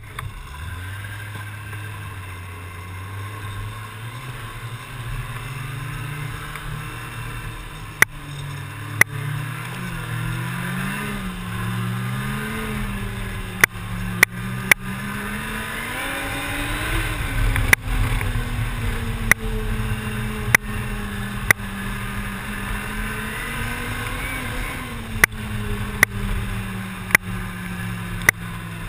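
Snowmobile engine running under way, heard from the rider's seat, its pitch rising and falling smoothly as the throttle changes. A dozen or so sharp clicks or knocks come at irregular intervals.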